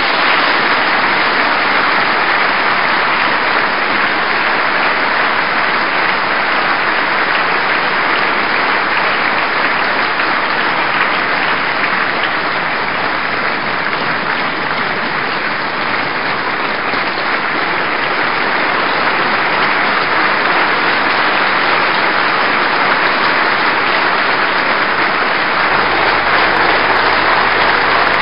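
A large audience applauding, long and steady, with many hands clapping at once.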